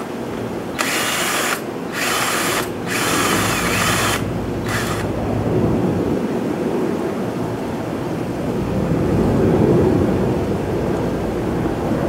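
Cordless drill with a socket bit driving the terminal bolts on a scooter battery, spinning in four short bursts over the first five seconds as the bolts are run down and snugged. A low rumble follows and swells toward the end.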